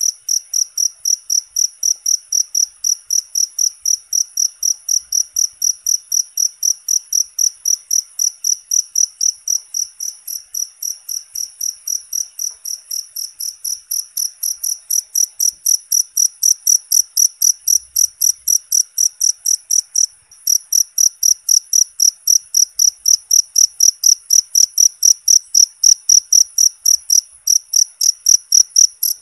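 Cricket chirping steadily: short high-pitched chirps about three times a second, with a brief break about twenty seconds in.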